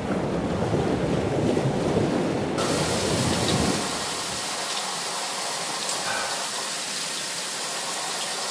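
Low rumbling wind noise on the microphone for the first three seconds or so, then, after a cut, an outdoor shower spraying water in a steady, even hiss for the rest.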